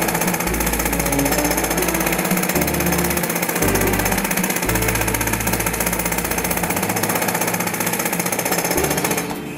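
Background music with a low bass line that moves in held notes about once a second, over a fast steady pulse.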